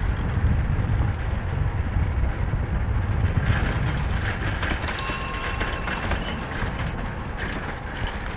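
Steady low rumble of a vehicle's engine and tyres heard from inside as it drives a mountain road, with wind noise from the open window. About five seconds in, a brief thin high tone sounds.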